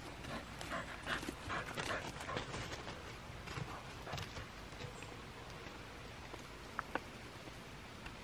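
Dogs moving about: faint, irregular rustles and scuffs that thin out about halfway through, with a couple of short clicks near the end.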